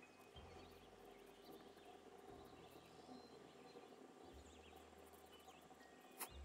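Near silence with very faint soft background music, its low notes changing about every two seconds, and a single sharp click near the end.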